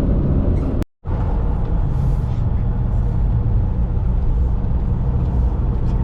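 Steady low rumble of engine and road noise inside a moving vehicle's cabin, broken by a brief dropout to silence about a second in.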